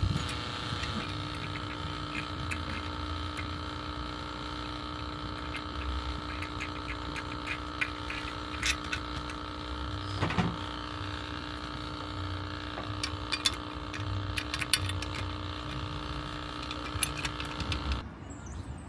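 A small motor runs with a steady hum of several fixed tones, with scattered clicks and knocks from a cable and a plastic cover plate being handled at a mini-split outdoor unit. The hum cuts off abruptly near the end.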